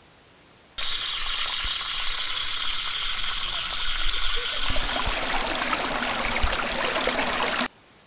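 Tap water running in a thin stream into a stainless steel sink, starting and stopping abruptly. The splashing grows fuller about halfway through.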